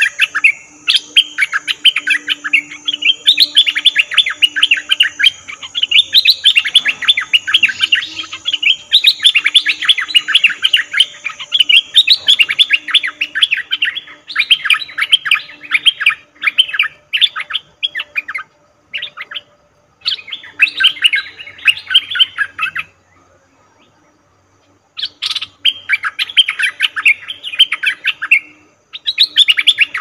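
Bulbul (nok dok taeng) giving long bursts of rapid, chattering repeated notes, broken by short pauses and one silent gap of about two seconds late on. A faint steady high whine, like an insect, runs under the first half.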